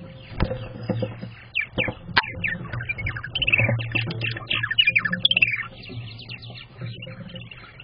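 Purple martins calling: a quick run of short, falling chirping notes that starts about a second and a half in and fades out after about five seconds. A single knock sounds just before the calls, over a steady low hum.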